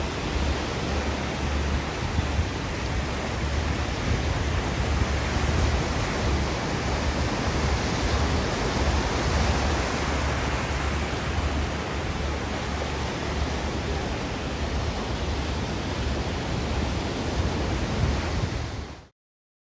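Ocean waves washing on a shore, a steady rush of surf with a low fluttering rumble beneath it. It cuts off abruptly near the end.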